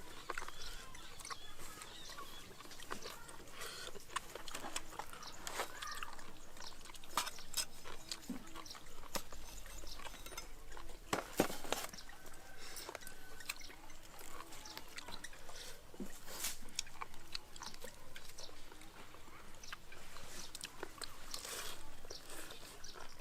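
Someone chewing and biting into steamed cow head meat: scattered wet smacks and sharp clicks of eating.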